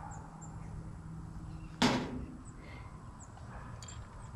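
Quiet handling of small parts while threadlocker is put on the oil pump bolts, with one sharp click about two seconds in, the loudest sound here.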